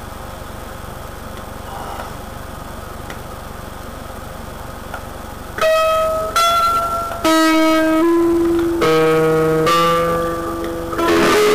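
A steady low hiss, then about halfway in a guitar starts a milonga with single plucked notes, one after another, and a strummed chord near the end.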